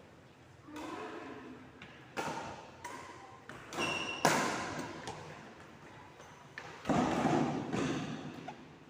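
A few dull thumps in a large, echoing room, the loudest about seven seconds in, with faint voices between them.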